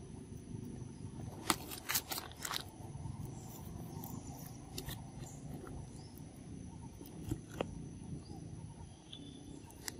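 Young macaques eating ripe mango: wet bites and chewing. There is a cluster of sharp smacking clicks about one and a half to two and a half seconds in, and a few single ones later.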